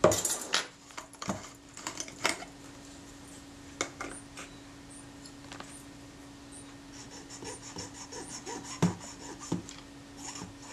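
Small hand-work sounds at a workbench: a few sharp clicks and knocks in the first couple of seconds, then scattered light taps. Near the end comes a quick scratchy rubbing as a cotton swab scrubs old glue and grime off a camera's rangefinder cover glass. A faint steady hum lies underneath.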